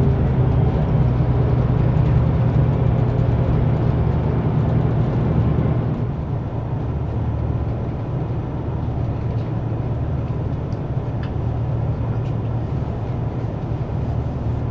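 Steady running noise inside a carriage of the Yufuin no Mori diesel train: a low engine hum over the rumble of the wheels on the track, easing off slightly about six seconds in.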